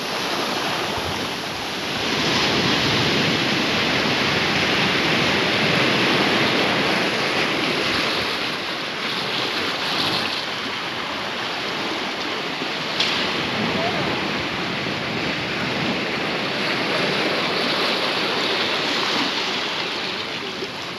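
Sea surf breaking and washing over shoreline rocks: a steady rushing noise that swells and eases over several seconds.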